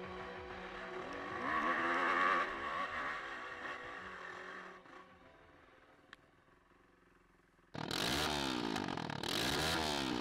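Honda CRF150 dirt bike's four-stroke single-cylinder engine revving up and down while riding, loudest about two seconds in and dropping low after about five seconds. Loud engine revving rising and falling starts abruptly near the end.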